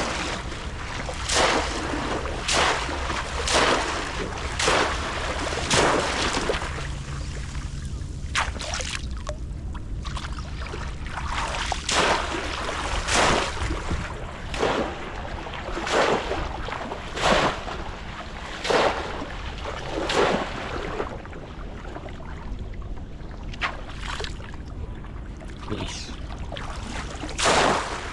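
Repeated splashes in shallow water, one every second or two with a short pause partway through, over a steady low wind rumble on the microphone.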